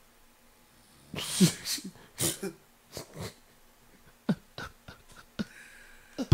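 A man laughing: breathy bursts of laughter, then a few short, sharp chuckles.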